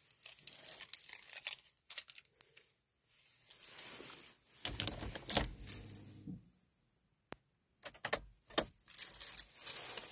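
Keys jangling in short clicking, rattling bursts, with a low rumble for about two seconds midway.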